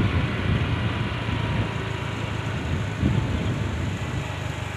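Steady running noise of a moving road vehicle: a low engine hum under a constant rushing of air and road noise.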